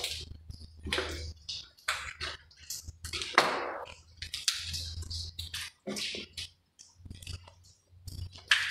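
Footsteps crunching and scuffing on a debris-strewn floor, irregular and uneven, with low rumbling camera handling noise underneath at times.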